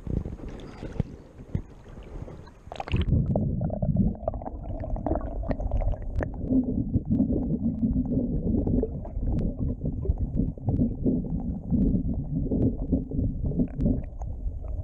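River water heard first through open air, then, about three seconds in, the camera goes underwater: from there on, a muffled low rumbling of current flowing past the camera housing, with scattered small clicks and knocks.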